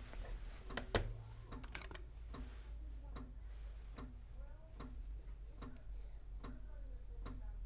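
Steady, even ticking a little faster than once a second, over a low mains-like hum.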